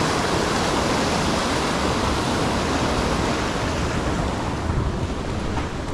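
Sea surf surging and washing over rocks in a steady wash of noise.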